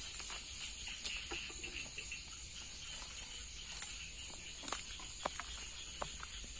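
Footsteps and rustling through dry grass and leafy plants, with a few sharp clicks, over a steady chorus of night insects.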